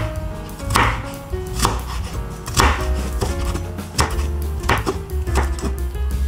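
Chef's knife chopping carrot on a wooden cutting board: about seven separate, unhurried strokes, each a sharp knock of the blade on the board.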